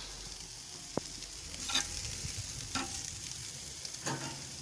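Wagyu steaks sizzling on a charcoal grill's grate: a steady frying hiss with a sharp pop about a second in.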